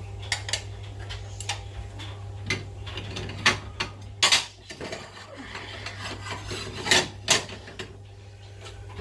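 Household clatter: irregular clicks and knocks of objects being handled, with the sharpest knocks in the middle and near the end, over a steady low hum.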